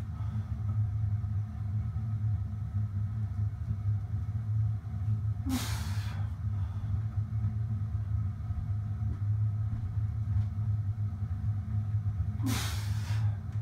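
Steady low hum from a running machine. Twice, about seven seconds apart, a short hard breath from a man straining through slow, heavy barbell squats.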